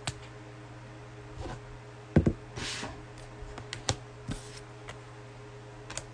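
Scattered clicks and taps, the loudest a sharp knock about two seconds in followed by a short rustle, over a steady low electrical hum.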